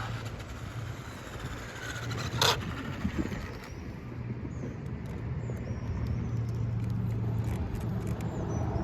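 Steady low motor hum over rushing noise, with one sharp click about two and a half seconds in.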